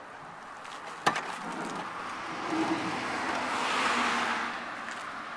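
A sharp knock about a second in, then a car passing by, its tyre and engine noise swelling and fading away.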